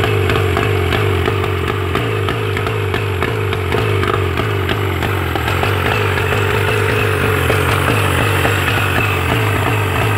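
1999 Mariner 40 hp two-stroke outboard motor running steadily with its cowling off.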